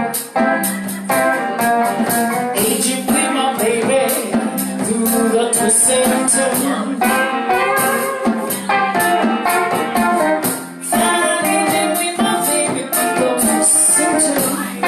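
A small band playing a song: a singer over pitched instruments, with a steady high percussion rhythm running through it.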